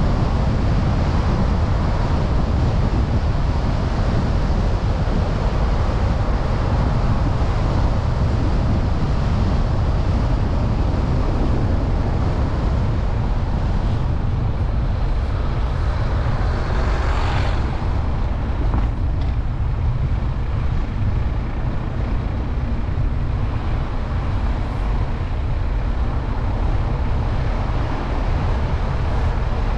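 Steady low road and wind rumble of a car driving, heard from the car itself. A little past halfway an oncoming vehicle passes with a brief swelling whoosh.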